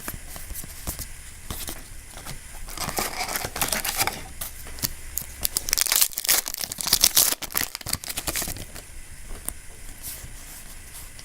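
Foil wrapper of a Yu-Gi-Oh booster pack being torn open and crinkled, in two crackly stretches about three seconds in and again from about six seconds in, with small clicks and rustles between.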